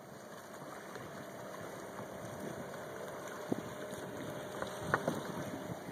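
Boat engine running at low speed, a faint steady hum, with a few faint knocks about three and a half and five seconds in.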